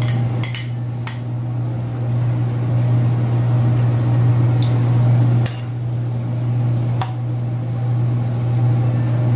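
A metal spoon clinking and scraping against a plate and an aluminium frying pan as chopped garlic is tipped in and stirred: a few sharp clinks in the first second and two more later on. Under it runs a steady low hum, the loudest sound throughout.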